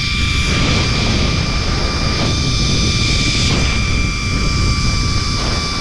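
Zip-line trolley running fast along the steel cable, with a steady high whine over heavy wind buffeting the camera's microphone.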